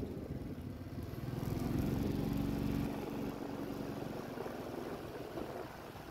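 A motor vehicle engine hums, growing loudest about two to three seconds in and then easing off, over steady street noise.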